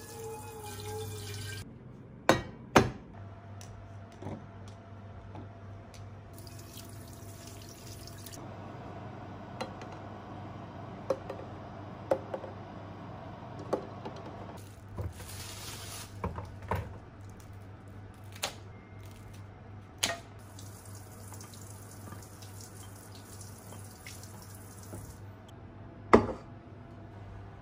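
A kitchen tap runs and splashes into a sink, briefly at the start and again for several seconds in the middle. Scattered sharp clinks and knocks come from enamel pots and dishes being handled and set down, the loudest near the end, over a low steady hum.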